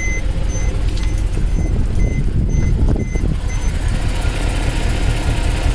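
Mercedes-AMG C63's V8 idling with its catalytic converters removed and an exhaust leak at a welded joint, which the owner hears as a little pop. A car warning chime beeps about twice a second over it and stops about three and a half seconds in.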